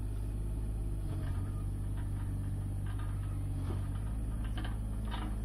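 Mini excavator's diesel engine running steadily, with a few faint clicks in the second half.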